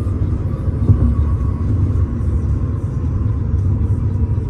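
Steady low rumble of a vehicle in motion, with a faint steady whine above it.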